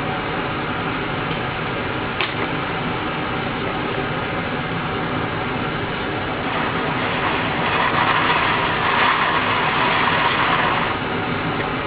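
Old foam surround remnants being scraped and pulled by hand from the edge of a JBL woofer's cone and basket, over a steady mechanical hum. A single click comes about two seconds in. The scraping grows louder from about six and a half seconds in and lasts some four seconds.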